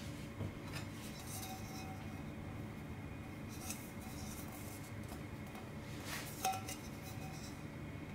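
Snow Peak titanium Sierra cup being handled on a metal tabletop: a few light clinks and scrapes. The sharpest clink comes about six and a half seconds in, with a short ring. A faint steady hum runs underneath.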